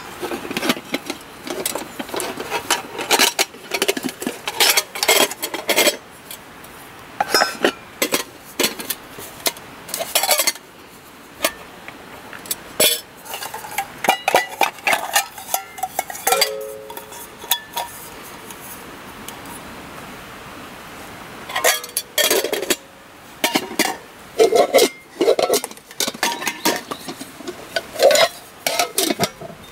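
Nested metal camping pots and lids clinking, knocking and scraping against each other as the stacked billy-can cookset is taken apart piece by piece. The sound comes in clusters of sharp clanks, with a brief ringing note now and then and a short lull past the middle.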